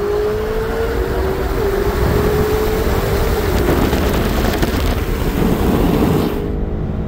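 2017 BMW X6M's twin-turbo V8, on downpipes, intakes and an E85 tune, at full throttle, heard from inside the cabin: the engine note climbs and steps down through two quick upshifts under heavy road and wind noise. Near the end the throttle lifts and the sound drops.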